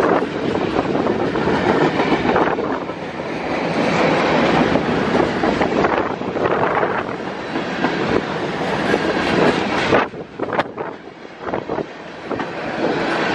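Covered hopper cars of a BNSF unit grain train rolling past close by, wheels clattering on the rails. The noise drops sharply about ten seconds in as the last cars pass.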